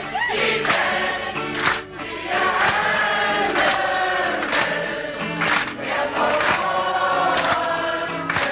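A group of stage performers singing together in chorus over musical accompaniment, with a steady beat about once a second.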